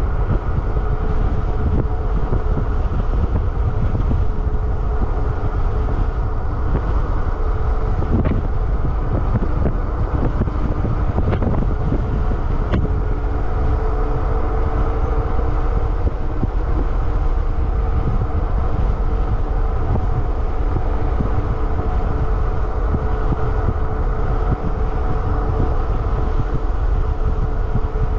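Wind buffeting the microphone over the steady hum of a Super73 RX electric bike's rear hub motor and tyres rolling at speed on asphalt, the hum's pitch rising a little about halfway through.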